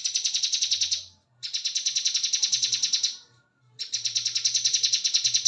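Bar-winged prinia (ciblek kebun) singing its rapid rattling 'ngebren' song. It gives three long trains of fast, high, even notes, about ten a second, each lasting one to two seconds with short pauses between.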